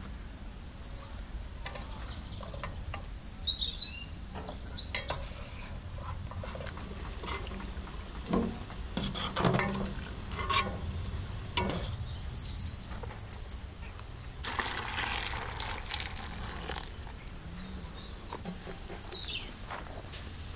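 Small birds chirping in short high calls at intervals, with a few sharp knocks around the middle. About fifteen seconds in, a rushing sound lasts a couple of seconds.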